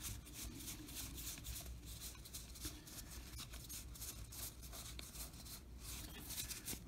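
Cardboard baseball trading cards sliding and rubbing against each other as a stack is thumbed through by hand: a faint run of soft, short scrapes.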